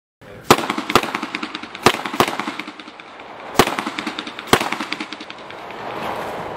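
Gunshots on a practical-shooting course: six loud shots at an uneven pace over the first four and a half seconds, some in quick pairs about half a second apart, with many fainter cracks between them.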